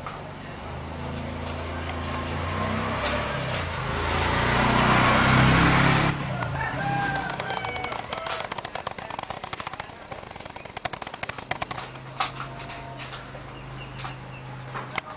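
A loud rushing noise with a low hum swells over the first six seconds and cuts off suddenly. After it, a zebra dove gives its song as a quick run of short staccato notes.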